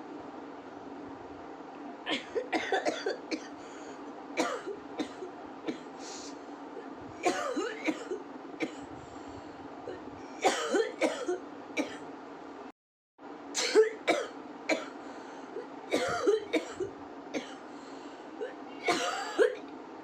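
A woman with a cold coughing and clearing her throat in short repeated fits over a steady background hum.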